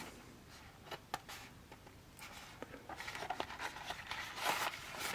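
Cardboard sleeve and paper inserts being handled: a few light taps, then soft uneven rustling and scraping as the card is opened and its contents slid out.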